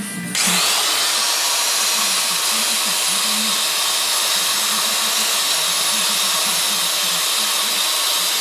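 A handheld power tool runs at a steady, high-pitched speed for about eight seconds, starting just after the opening and cutting off suddenly near the end.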